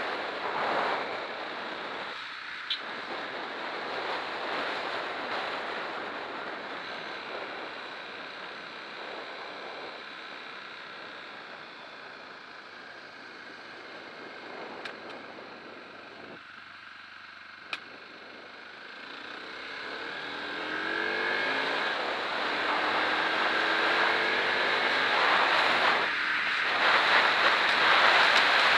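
Wind rushing over the microphone of a 2003 Aprilia Tuono ridden on the road, with the engine running underneath. There are three short sharp pops, backfires, and from about two-thirds through the engine rises in pitch and grows louder as the bike accelerates.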